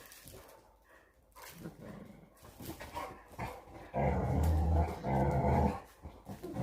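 Dog growling twice in low, drawn-out rumbles about four seconds in, each under a second long, after a few faint softer sounds.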